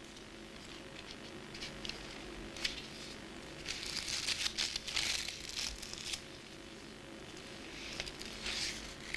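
Thin paper pages of a small pocket edition of Mao's quotations rustling as they are leafed through by hand. The rustling is loudest from about four to six seconds in and again near the end, over a faint steady hum.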